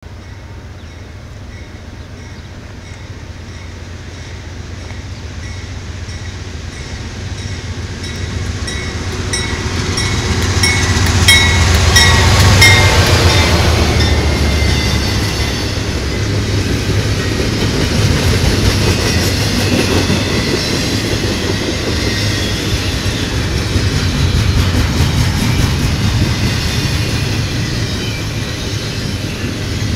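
Norfolk Southern diesel locomotive approaching and passing close by, growing louder until it goes by about twelve seconds in, its pitch falling sharply as it passes. A repeated high-pitched ringing runs until the locomotive passes. Double-stack intermodal well cars then roll past with a steady rolling noise.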